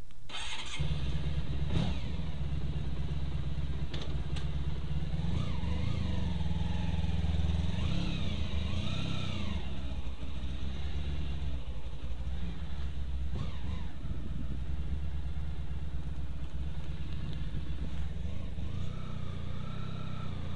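Honda ST1100 Pan European's V4 engine starting up about a second in, then running as the motorcycle pulls away at low speed, its pitch rising and falling a little as the throttle is worked.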